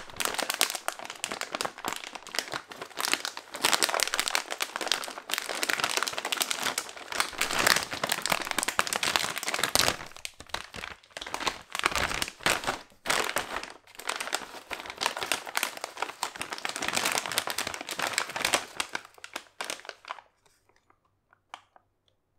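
A foil-lined Calbee potato chip bag crinkling and crackling as hands open and handle it, with the chips shifting inside. The crinkling stops about two seconds before the end.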